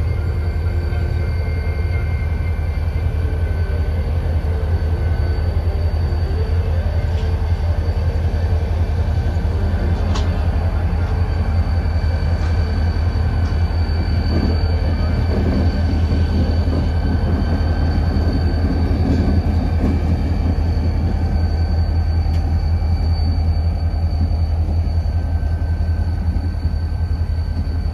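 Diesel locomotive rolling slowly past, its engine giving a steady low rumble that swells a little around the middle as it passes closest.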